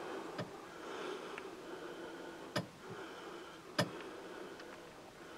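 Quiet background hiss broken by a few sharp clicks, the two loudest a little past halfway.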